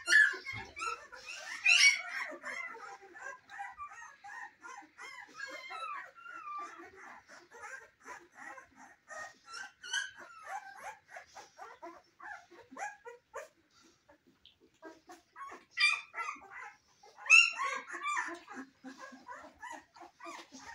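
Young Cane Corso puppies whimpering and squeaking in a near-continuous chorus of short high cries, with a few louder yelps about two seconds in and again near the end.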